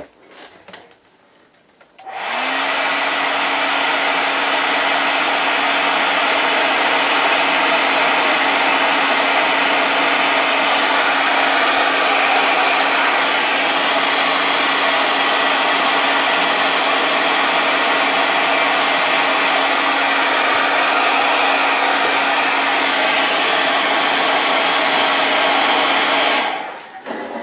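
Handheld hair dryer switched on about two seconds in, blowing steadily with an even rush of air over a steady motor hum for over twenty seconds, then switched off shortly before the end. It is being used to dry acrylic paint on miniatures between coats.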